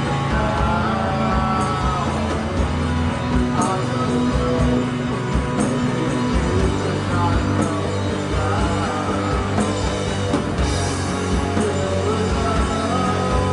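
Live rock band jamming, with electric guitar over a steady bass line and drums, and a cymbal accent about every two seconds.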